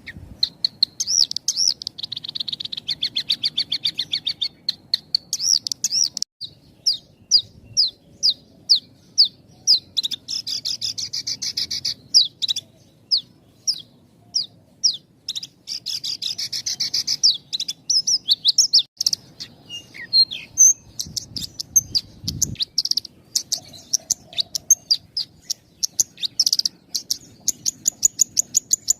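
Javan bush lark (branjangan) singing a dense song with almost no pauses. Rapid strings of short, high notes alternate with longer buzzy trills.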